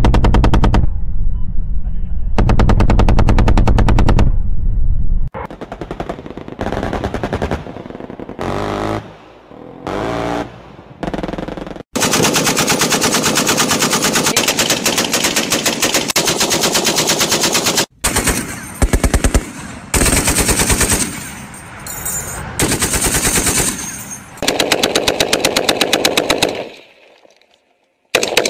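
Machine-gun fire: long bursts of rapid shots running together, broken by short pauses and abrupt cuts, with one unbroken burst of about six seconds in the middle.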